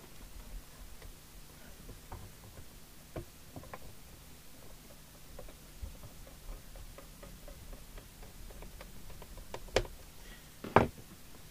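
Scattered small clicks and taps of parts and tools being handled on a workbench while looking for screws, with two sharper knocks near the end. A faint low mains hum runs underneath.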